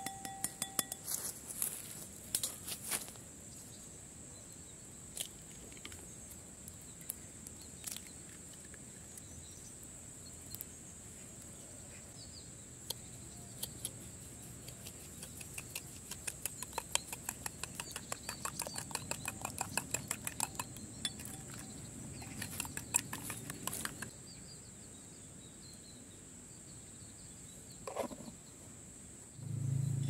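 Eggs tapped and cracked on the rim of a clay bowl, a few sharp knocks, then a metal spoon beating eggs in the clay bowl with rapid clinking for several seconds near the middle.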